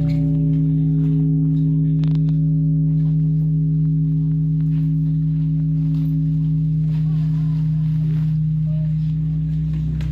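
A large bell humming on after being struck, a steady cluster of deep ringing tones that eases slightly near the end.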